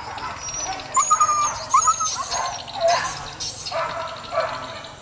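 Hunting dogs yelping and whining, with short high cries that slide in pitch, the strongest about a second in and again around two to three seconds in.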